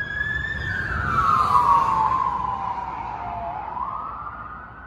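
Emergency vehicle siren in a slow wail: one tone holds, slides down over about three seconds, then rises again, growing steadily fainter.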